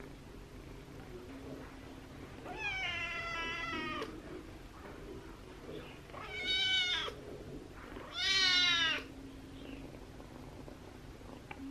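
Kitten meowing three times: a longer call that falls slightly in pitch, then two shorter arched calls, the last the loudest.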